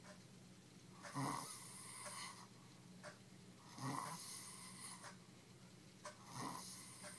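A person snoring in a deep drunken sleep after heavy drinking, three snores about two and a half seconds apart, each starting sharply and then trailing off.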